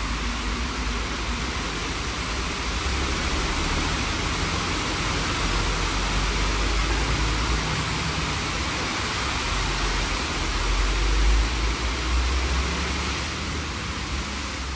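High-pressure water jets of a WashTec SoftCare² Pro rollover car wash spraying the car at 40 bar in the contour high-pressure pass: a steady, loud hiss of spray over a low rumble that swells about ten seconds in.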